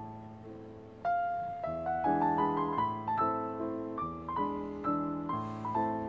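Background piano music: a gentle melody of struck notes that grows louder about a second in and keeps an even, flowing rhythm.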